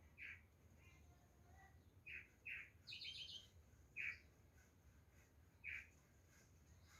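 Wild birds calling: short single notes repeated at irregular gaps of one to two seconds, with a brief rapid trill of higher notes about three seconds in.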